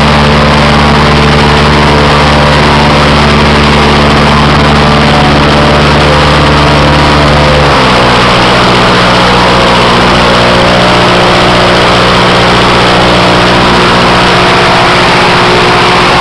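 Continental 4A032 four-cylinder air-cooled engine running loud and steady while turning an airboat propeller. About eight seconds in its speed drops a step, and it keeps running evenly at the lower speed.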